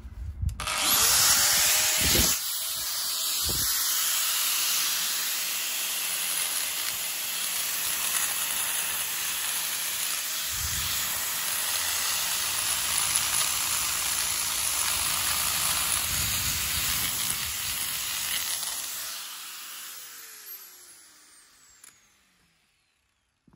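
Angle grinder fitted with a mortar rake bit starts up about a second in and runs steadily, raking mortar out of the brick joints, then is switched off and winds down near the end.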